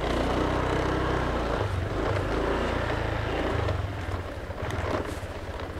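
Motor scooter's small engine running as the scooter rides in, easing off in the last second or two as it slows.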